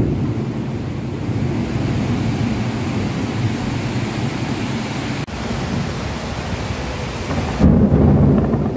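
Heavy rain pouring, a steady rushing noise with a strong low rumble. It breaks off for an instant about five seconds in, and near the end it changes abruptly to a deeper, duller sound.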